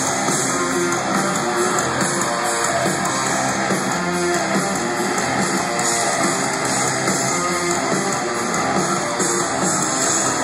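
Live rock band playing loud through an arena PA, with electric guitars strumming, heard from the audience stands.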